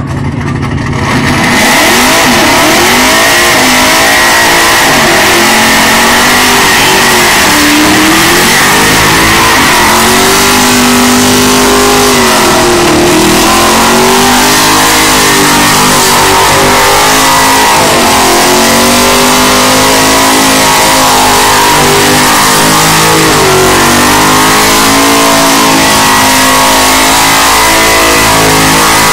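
Holden van's engine held at high revs in a burnout, the revs rising and falling again and again, with the spinning tyres screeching steadily. The engine climbs to full revs about a second in and stays very loud.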